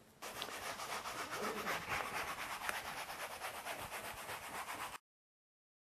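Baren rubbed in quick, even back-and-forth strokes over the back of Hosho paper on an inked woodblock, a rhythmic rubbing hiss: burnishing to transfer the pigment onto the print. It cuts off suddenly near the end.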